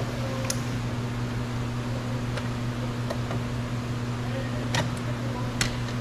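A steady low mechanical hum, with about four short sharp clicks: plastic wiring connectors being unplugged from the door's window-switch panel.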